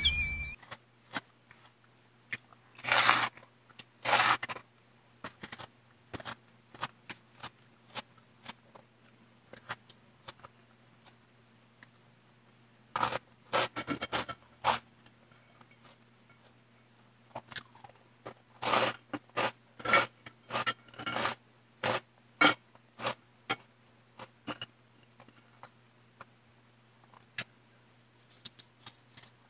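Close-up eating sounds: chewing and mouth noises, with scrapes and small clicks of fingers and food on a plate, coming in scattered short bursts over a faint steady low hum.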